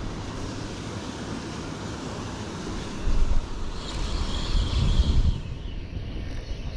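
Wind buffeting the microphone as a low, uneven rumble, with stronger gusts about three and five seconds in.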